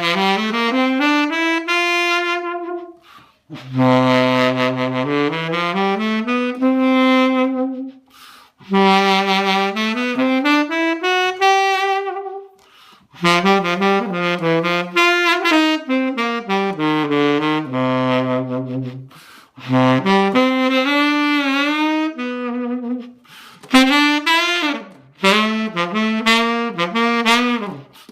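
Tenor saxophone with a Delrin Dragon's Tongue mouthpiece and a carbon fiber reed, played solo in jazz phrases of a few seconds each with short breathing pauses between them. Many phrases sweep upward from low notes.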